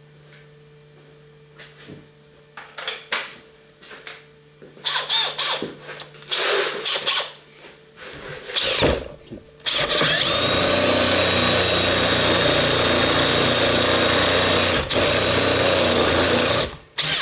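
Handling clicks and knocks, then a cordless drill runs steadily for about seven seconds, with a brief dip near the end, boring a quad-tip auger bit into hardwood. The bit is blunt, dulled by nails in the timber.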